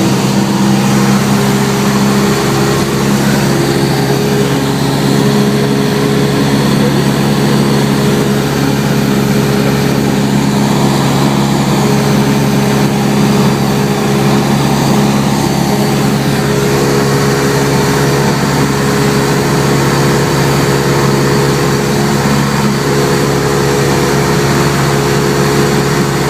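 Cessna 172's piston engine and propeller droning steadily, heard from inside the cabin, a loud, even hum with a few steady tones.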